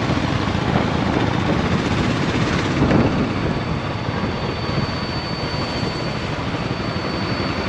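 Motor vehicle running along the road: a steady engine rumble mixed with wind rushing over the microphone.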